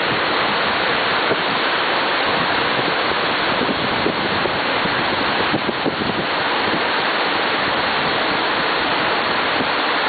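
Steady rush of a tall twin-stream waterfall, about 60 m high, crashing into its plunge pool.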